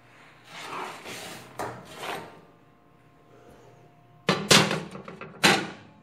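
Metal Prestige baking tray being handled at an open oven. It scrapes and rubs for the first couple of seconds, then clanks sharply two or three times on the wire oven rack as it is set in, about four to five and a half seconds in.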